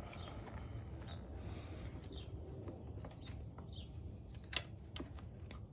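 Scattered clicks and light clinks of metal engine parts being handled as a motorcycle's finned cylinder is lifted off and a rag is pushed into the crankcase, with one sharper click about four and a half seconds in. A few short, faint bird chirps.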